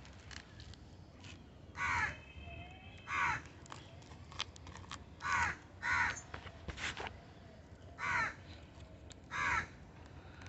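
A crow cawing: six short harsh caws, coming roughly in pairs a second or two apart.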